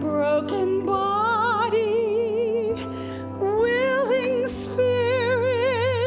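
A woman singing a slow solo with wide vibrato on long held notes, over a sustained instrumental accompaniment. She breaks off briefly about three seconds in, then glides up into another long note.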